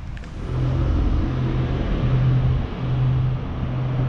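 A motor vehicle's engine running close by: a steady low hum that grows louder about half a second in and dips briefly a few times.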